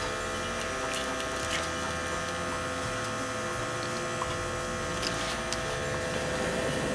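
Battery-powered fan of a wood-gas camp stove humming steadily as it blows air into the fire, with a few faint crackles from the burning sticks.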